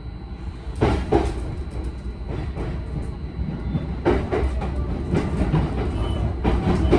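JR Nikko Line commuter train heard from inside the car: a steady low rumble with scattered clacks and knocks, a few at a time.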